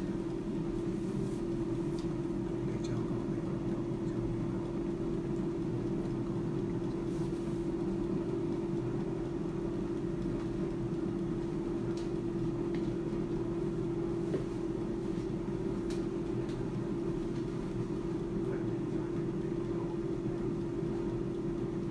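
Klarstein AeroVital 5.4-litre air fryer running: its fan gives a steady hum with one constant tone.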